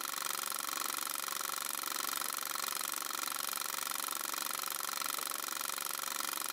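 Film projector running: a steady mechanical whir with a fast, even flutter.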